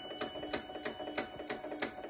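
Roland BN-20 printer running its ink fill: an even, rhythmic clicking about three times a second over a steady high whine, as ink is pumped through the tubes into the printhead dampers.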